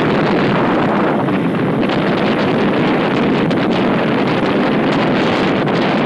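Wind rushing over the microphone of a motorcycle riding at speed: a loud, steady rush, with the bike's running and road noise mixed underneath.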